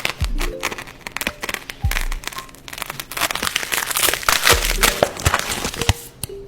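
Plastic packaging crinkling and crackling as a package is opened, a dense run of sharp crackles, over background music with a recurring bass note.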